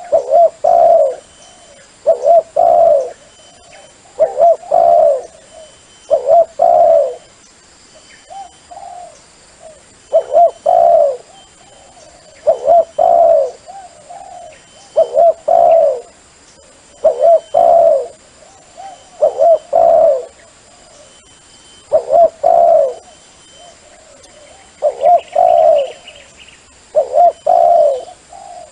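Dove cooing: a short phrase of two or three low coos, repeated about every two seconds, played as a lure call for decoy trapping of doves. Faint high chirps of smaller birds sound behind it.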